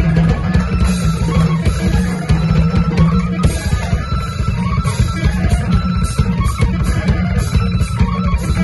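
Instrumental rock from an electric guitar and a drum kit playing loud, with steady drum and cymbal hits under the guitar.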